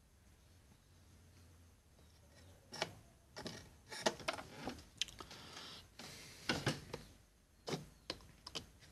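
Metal tools, a soldering iron tip and a metal pick, scraping and tapping against a tin bottle cap: near-quiet for the first few seconds, then a scattered run of short scrapes and clicks.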